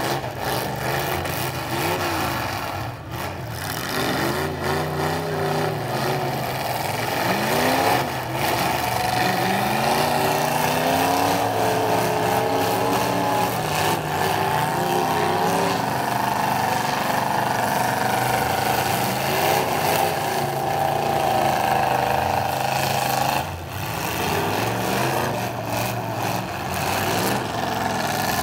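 Demolition derby car engines revving hard, the pitch climbing and falling, then held high for a long stretch through the middle before briefly dropping off.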